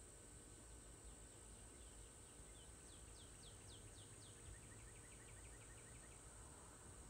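Faint outdoor quiet with a distant songbird: a series of falling whistled notes, then a quick trill of short notes about six a second, over a faint steady high insect buzz.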